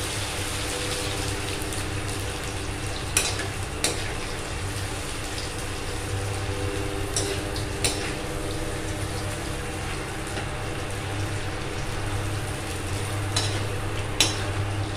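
Rice papad frying in hot oil in a kadhai, sizzling steadily, while a slotted metal ladle stirs and lifts the pieces. The ladle knocks against the pan in quick pairs of clinks three times.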